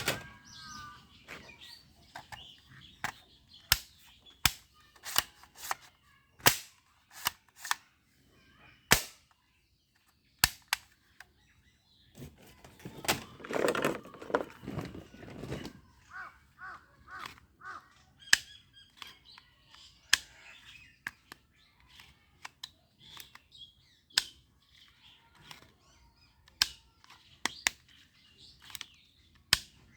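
Toy bead-shooting gun fired again and again, sharp cracks at irregular intervals. A rougher sound lasting a few seconds comes in the middle, with faint bird calls in the background.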